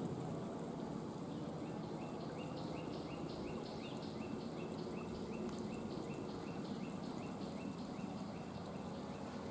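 Quiet outdoor ambience: a low steady rumble under a high chirping call repeated evenly, a bit more than twice a second, starting about a second and a half in.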